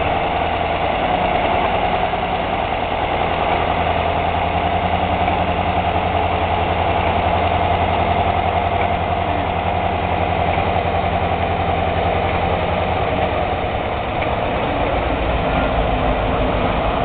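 Small narrow-gauge diesel locomotive's engine running steadily at low revs as it moves slowly along the track.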